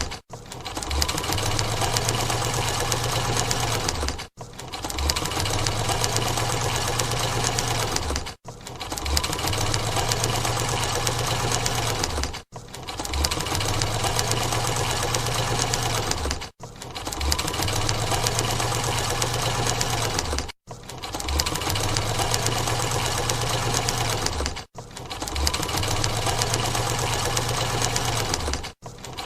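Sewing machine running at speed, a fast even clatter of stitching. It comes in runs of about four seconds, each cut by a brief break, over and over.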